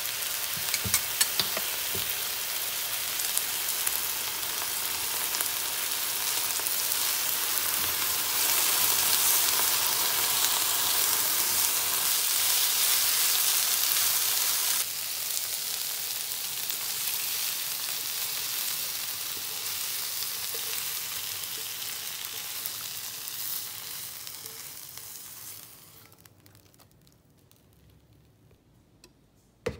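Eggplant pieces and soy sauce sizzling in a hot nonstick frying pan as they are stirred with a silicone spatula, with a few light clicks in the first couple of seconds. The sizzle fades out about 25 seconds in, leaving near silence.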